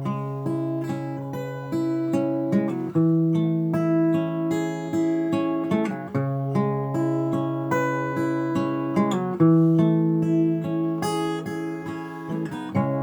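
Acoustic guitar playing a song's instrumental introduction: a picked chord pattern, several notes a second, over held bass notes.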